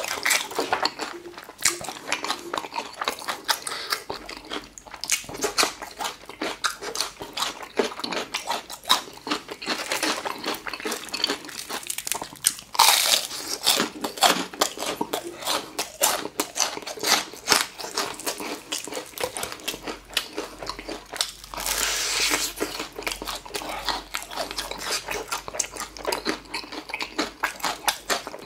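Close-miked crunching and chewing of crispy fried chicken, with loud crackling bites through the battered crust about halfway through and again about three quarters of the way in.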